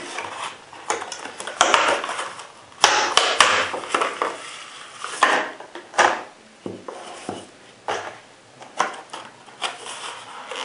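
Packaging being handled as a set of rubber revolver grips is taken out: irregular rustling, scraping and several sharp knocks and clacks.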